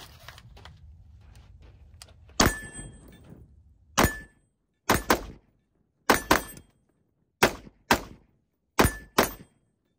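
Unsuppressed short-barrelled AR-style rifle firing about ten shots: a single shot about two seconds in, another a moment later, then quick pairs.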